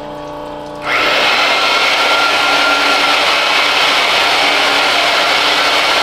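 Line honing machine turning its stone honing mandrel through the main bearing bores of a Nissan RB26 engine block. A motor whine jumps, about a second in, to a much louder steady grinding noise with a hum under it.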